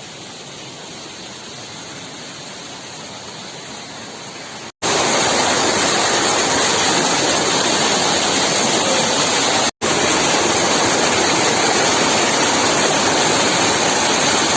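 A waterfall's falling water rushing steadily, in three cut-together takes with brief dropouts between them; much louder from about five seconds in.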